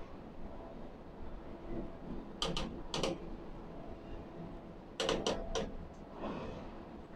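Steady industrial machinery hum with sharp clicks or knocks in two clusters, three about two and a half seconds in and three about five seconds in, and a short hiss near the end.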